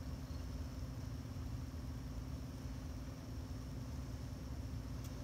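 Steady low background hum with a constant pitch, like a machine running, and a faint click near the end.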